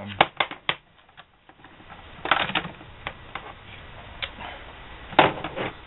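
Scattered clicks and light knocks of a plastic meter case and its circuit board being handled and set into place: a quick cluster near the start, another about two and a half seconds in, and a single louder knock near the end.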